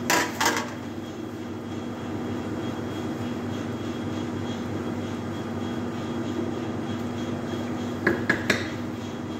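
Steady hum of a commercial kitchen extractor hood and lit gas burner. A wooden spoon knocks against a pot a few times at the very start and again about eight seconds in, while macaroni is stirred in the boiling pot.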